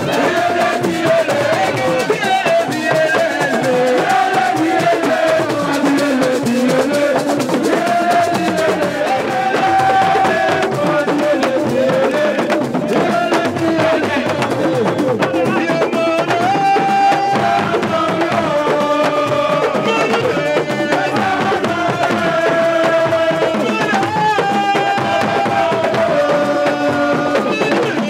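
Music of hand drums beaten in a fast, dense rhythm, with voices singing over them.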